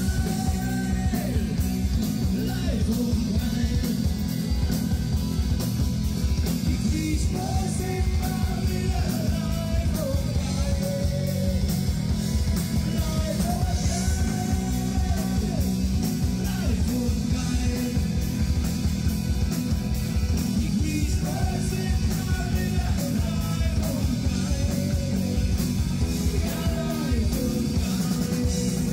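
Live rock band playing a loud rock song, with a singing voice over guitars, bass and drums.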